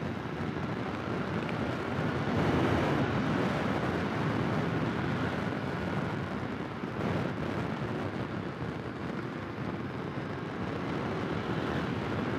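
Steady rush of wind and road noise from riding a scooter, with no clear engine note, swelling slightly about two to three seconds in.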